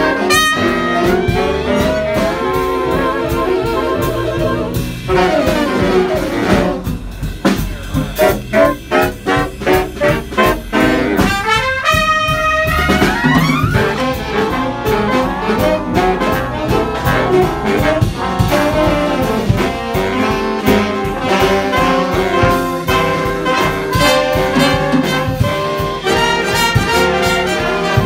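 Live jazz big band playing: trumpets, trombones and saxophones over upright bass, guitar and drums. From about six to eleven seconds in, the music breaks into short separate hits before the full band comes back in.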